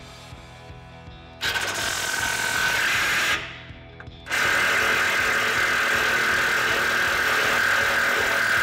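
Cordless impact wrench running on a socket to remove a bumper mounting nut from a frame stud. It runs in two goes: about two seconds starting a second and a half in, then after a pause of about a second a longer run.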